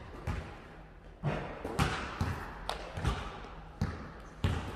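Basketball bouncing on a gym floor, about eight uneven bounces, each thud trailing off in the hall's echo.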